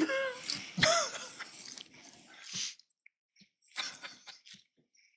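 Breathless, wheezing laughter: a pitched vocal outburst with gliding pitch at the start, then breathy gasps, and a run of short laughing pulses about four seconds in.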